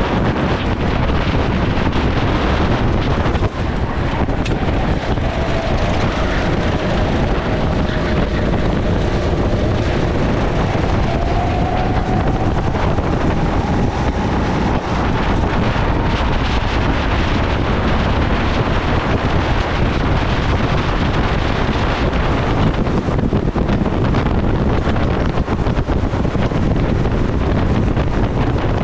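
Go-kart engine running at racing speed, largely covered by steady wind buffeting on the onboard microphone. A faint engine whine climbs slowly in pitch for several seconds through the middle.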